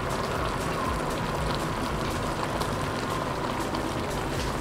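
Chicken, peppers and onions bubbling and sizzling in their own juices in an enamelled cast-iron pot on a gas burner: a steady crackle with scattered small pops.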